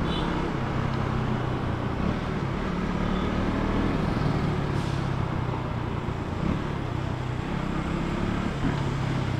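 KTM Duke 200's single-cylinder engine running as the motorcycle is ridden, its note rising and falling slightly, under a steady rush of wind and road noise.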